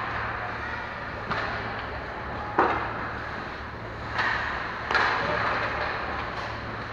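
Ice hockey play on the rink: skates scraping and carving on the ice, with sharp knocks of sticks, puck or boards, the loudest about two and a half seconds in, over a steady low hum.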